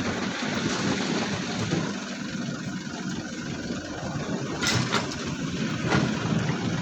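Heavy diesel engine of quarry machinery running steadily, with a sharp click about two-thirds of the way through.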